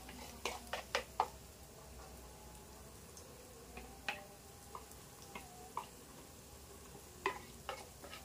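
Faint sizzle of food frying in oil in a pan, with scattered light clicks and taps of a utensil against the pan.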